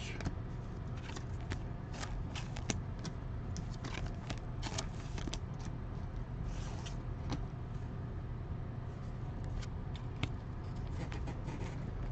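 Trading cards being handled and flipped through: scattered soft clicks and rustles over a steady low hum.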